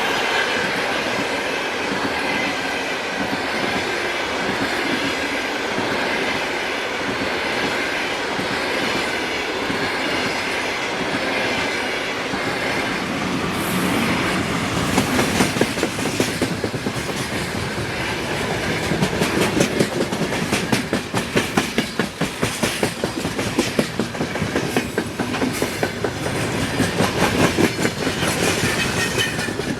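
2ES10 "Granit" electric locomotive hauling a freight train past. A steady rushing noise gives way, about halfway through, to the dense rhythmic clickety-clack of freight wagon wheels over the rail joints.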